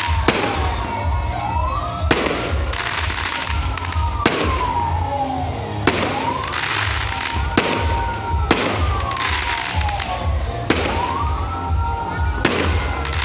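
Fireworks display: aerial shells bursting with sharp bangs every second or two, between recurring whistling tones that rise quickly and then slowly fall.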